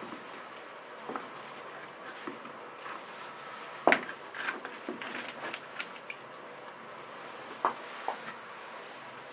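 Loose bricks knocking and scraping on a stone hearth as they are handled and set in place: one sharp knock about four seconds in, then scattered smaller clicks and scrapes.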